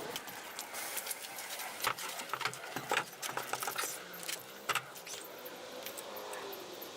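A series of light clinks and rattles, irregular sharp clicks that are thickest in the middle and fade out near the end.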